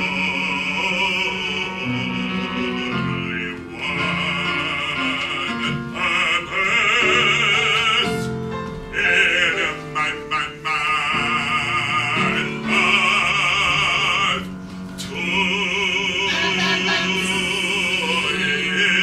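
Operatic singing with wide vibrato over instrumental accompaniment, from a comic ballad opera, in several sung phrases with short breaks between them.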